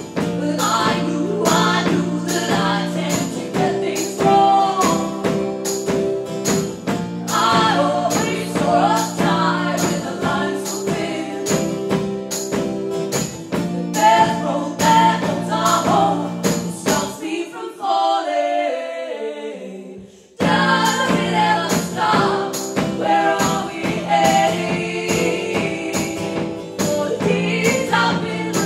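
Live band playing a song with singing over a steady percussive beat. About two-thirds of the way through, the music drops away to a falling slide, then comes back in at full strength.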